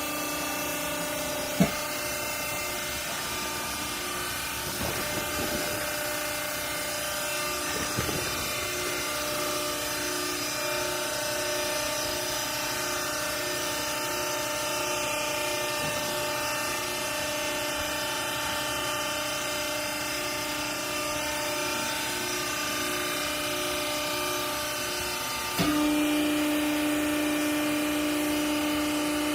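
Hydraulic baling press for used clothing running, its motor and pump giving a steady hum with a sharp clack about a second and a half in. Near the end the hum suddenly steps up louder, settling onto a new steady tone.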